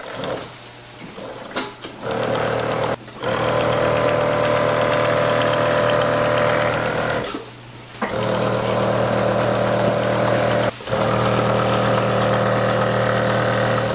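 Pegasus industrial sewing machine stitching umbrella cloth, running at a steady speed in three runs. It starts about two seconds in, stops for under a second around seven seconds in, and breaks off only briefly near eleven seconds before running on.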